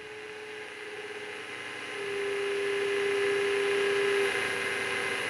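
Variable-speed wood lathe motor running with a steady whine while its speed is set lower for roughing. The whine grows louder, and its main tone steps slightly lower about two seconds in.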